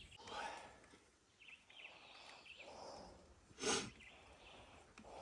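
Quiet outdoor ambience with small birds chirping now and then, and a single short, sharp knock about two-thirds of the way through.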